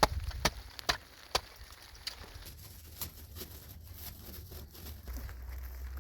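Four sharp knocks, about two a second, in the first second and a half, then fainter scattered ticks, with a low rumble coming in near the end.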